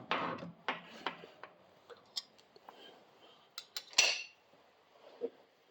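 Small metal hardware clinking, tapping and scraping as brake caliper bolts and spacers are taken off and handled by hand, with a knock at the start and a louder clatter about four seconds in.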